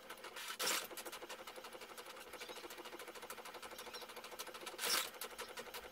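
Inkjet printer printing a page: a rapid, even mechanical ticking of the print mechanism, with two louder swells of noise, one about half a second in and one about five seconds in.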